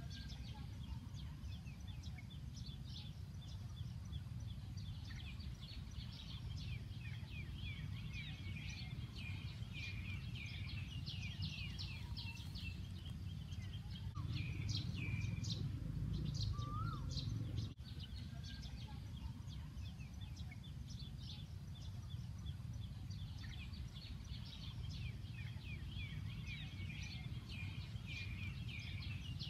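Many small birds chirping together in a dense chorus of short, quick, falling notes, over a steady low rumble that swells for a few seconds near the middle.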